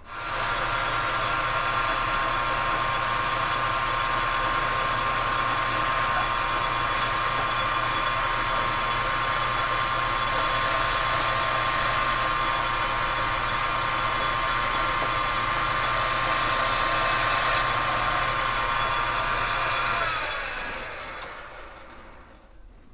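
South Bend lathe running under power, the spinning four-jaw chuck and gearing giving a steady mechanical whine with a low hum beneath. About twenty seconds in it is switched off, and the whine drops in pitch and fades as the spindle coasts to a stop.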